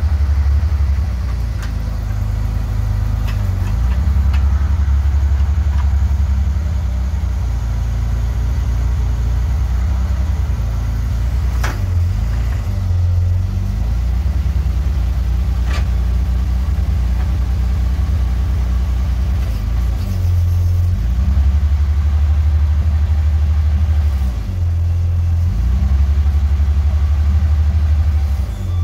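Volvo C304 (Tgb 13) truck's straight-six engine running steadily while its hydraulic crane folds the boom in; the engine note steps up and down repeatedly as the crane works. A few sharp knocks partway through.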